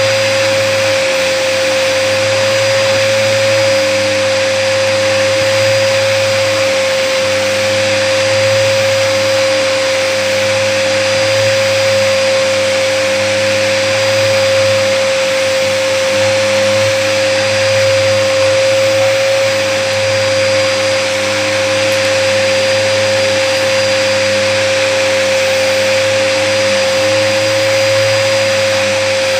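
Hoover vacuum cleaner running steadily, a constant whine over the motor's rushing noise. The vacuum is clogged and has not been cleared.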